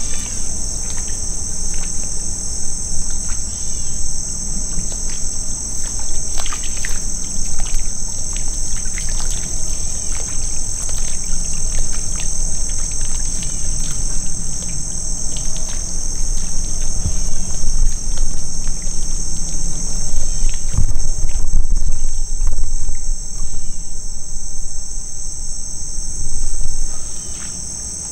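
A steady insect chorus: a high, continuous chirring drone. Beneath it run a low rumble and scattered soft clicks and rustles, and the rumble falls away near the end.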